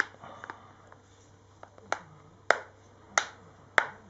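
Plastic clips of a tablet's case snapping into place one after another as fingers press the touchscreen and cover together along the edge. It sounds as a series of sharp clicks, about seven, spaced roughly half a second apart, the loudest in the second half.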